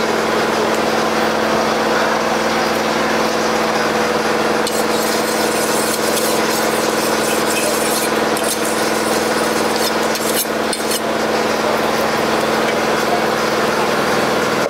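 A small engine runs steadily under everything, with a low even hum. From about five to eleven seconds in, a broad fish knife is drawn in quick, irregular scraping strokes along a flat sharpening bar.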